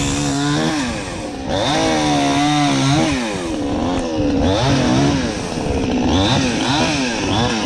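Brand-new Dedra petrol chainsaw cutting logs. Its engine pitch rises and falls again and again as it is throttled up and loaded in the cut.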